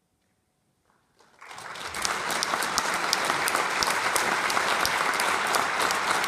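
Near silence for about a second, then audience applause starts and swells within a second into steady, dense clapping from a large audience.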